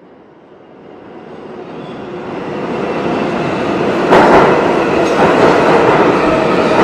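New York City subway train (7 line) pulling into an underground station. Its rumble grows steadily louder as it approaches, becomes suddenly louder about four seconds in, then holds as a loud, steady rush of wheels on rails as the cars pass.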